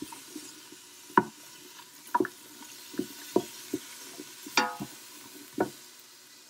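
Diced onions sizzling in an Instant Pot's stainless steel inner pot on the sauté setting, while a wooden spoon stirs them, knocking and scraping against the pot about once a second.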